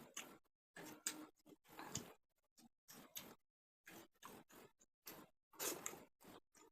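Close-miked eating sounds: irregular short smacks and clicks of chewing, a few every second.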